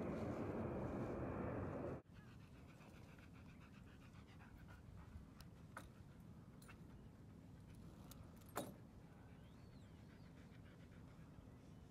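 A loud rushing noise like wind on the microphone for the first two seconds, cutting off abruptly, then a husky panting quietly, with a few sharp clicks, the loudest a little past the middle.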